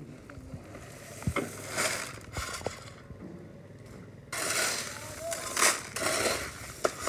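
Shovel scooping crushed stone and tipping it into a metal wheelbarrow: repeated rattling pours of gravel, louder and more frequent from about four seconds in, over a faint low steady hum.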